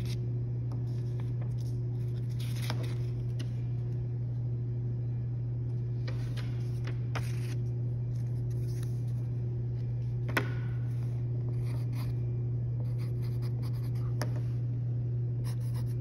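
Pencil writing and paper being handled on a desk: scattered scratches and rustles with one sharp tap about ten seconds in, over a steady low hum.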